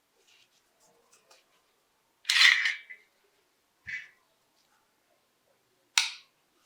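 Metal parts of a Colt 1911 pistol being handled, clicking and clacking. Faint ticks, then a loud scraping clack about two seconds in, a shorter knock about four seconds in, and a sharp click near the end.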